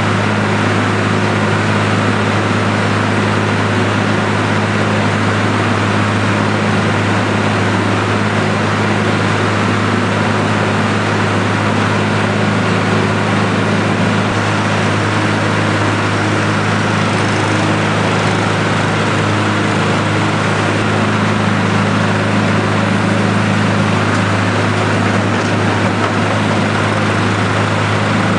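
Penta vertical TMR mixer running while its auger churns forage in the tub: a loud, steady mechanical drone with a strong low hum.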